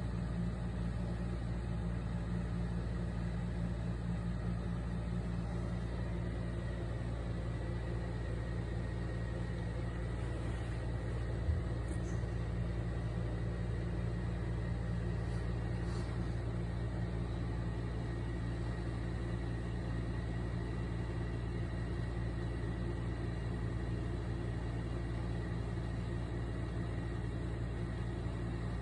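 Steady low rumbling hum of background machinery, with a single faint knock about eleven and a half seconds in.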